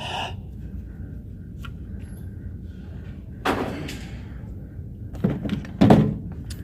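Several pistol shots fired at an indoor range, spaced irregularly through the second half, each with a short echo; the loudest comes about six seconds in.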